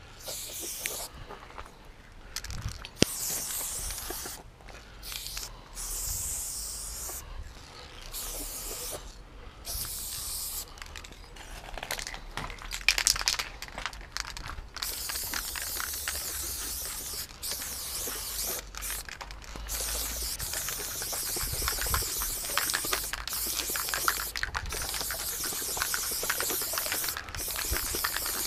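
Aerosol spray-paint can hissing as graffiti lines are sprayed, in short bursts with gaps for the first ten seconds or so, then in long, nearly unbroken sprays.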